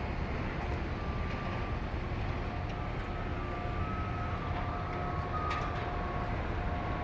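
Steady street rumble of passing traffic, with faint drawn-out whining tones that come and go.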